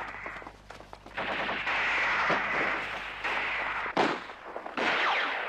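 Gunfire in a firefight: rapid, dense runs of shots like automatic fire, dipping briefly about half a second in, with one sharp, loud shot about four seconds in.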